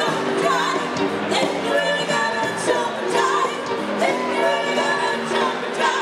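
A dance band with a horn section playing, with a singer's voice over it.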